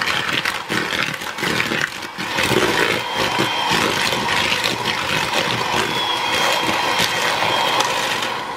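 Electric hand mixer running, its twin beaters creaming margarine and sugar in a plastic bowl, with a steady motor whir and the beaters clattering against the bowl. It winds down at the very end.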